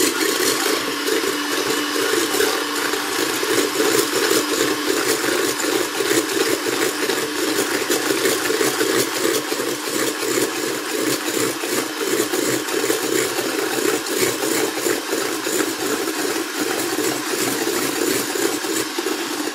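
Electric mixer whipping egg whites in a bowl for meringue, a loud steady whir. The whites are being beaten to the foamy stage before the sugar goes in.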